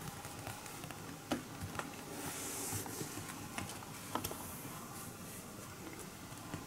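Quiet room with a few faint, scattered light ticks and taps from a kitten's paws padding across tatami.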